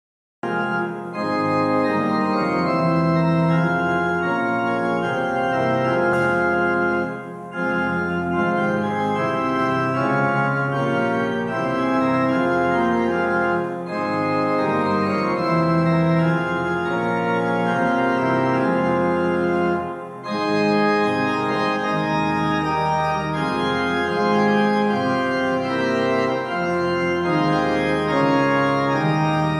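Organ playing slow, held chords, with short breaks between phrases.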